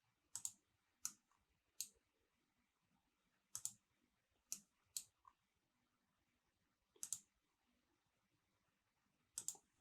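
Computer mouse clicking: several sharp, separate clicks, some in quick pairs like double-clicks, with near silence between them.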